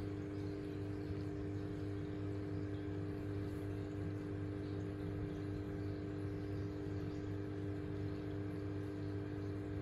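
Aquarium filter pump running with a steady mains hum, over a light wash of moving water.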